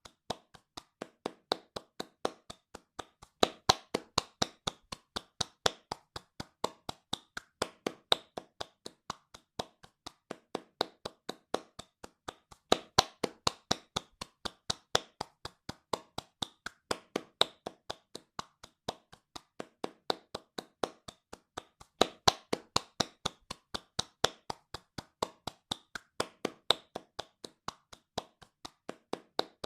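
Hands clapping fast and evenly, about four sharp, separate claps a second, with a louder clap every few seconds.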